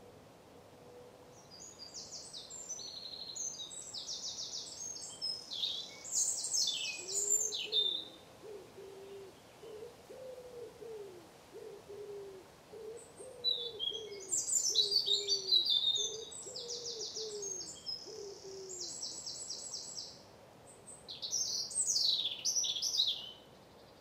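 Wild birds singing: two long bursts of high, fast trilling song, and between them a low hooting call repeated about fifteen times in a steady series.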